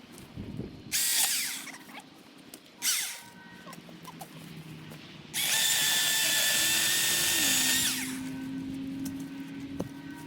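Milwaukee Fuel cordless chainsaw: its electric motor whines up in two short blips, then runs steadily for about two and a half seconds before winding down.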